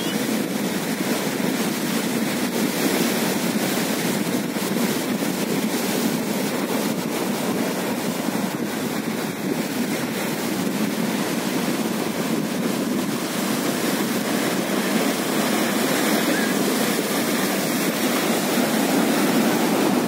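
Sea waves surging in and washing over a flat rock shore, a steady rushing surf that swells slightly louder near the end.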